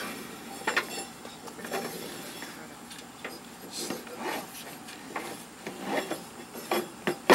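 Old rubber deck belt being pulled and worked off the pulleys of a riding-mower cutting deck by hand: irregular rubbing and scraping with light metallic knocks and clicks, and a sharper knock near the end.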